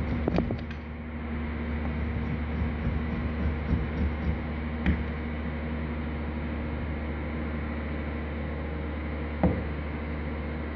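Hand-held blade scraping and shaving a block of plaster, with a few sharp clicks near the start and a single knock near the end, over a steady background hum and hiss.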